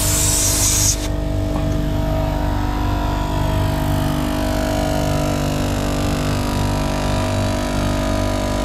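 Air compressor running steadily with a fast pulsing beat while it pumps air through a coiled hose into a Jeep tire, refilling it to road pressure after off-roading. A loud hiss of air stops abruptly about a second in.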